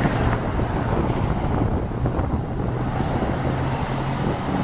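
Fire tanker's diesel engine running with a steady low drone as the truck sits at the bay door ready to roll out, with wind buffeting the microphone.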